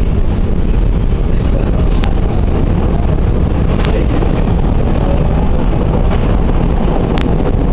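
Steady running rumble of a Chicago 'L' (CTA Green Line) train, heard from inside the car, with a few sharp clicks.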